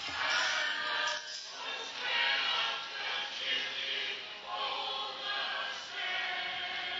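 Music with a choir singing, in phrases about a second or two long.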